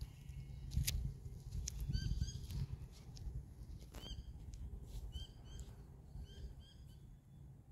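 Birds calling in short, hooked chirps, many of them in pairs, over a low rumble of wind on the microphone, with a few sharp clicks.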